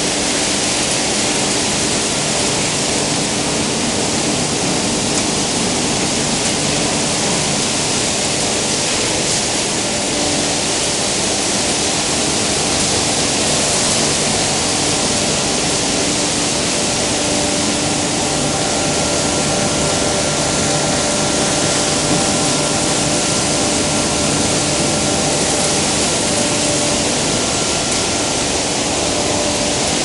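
Plastic film washing and recycling line running: a loud, steady rushing noise of machinery and water, with a low steady hum and a faint higher whine that joins about halfway through.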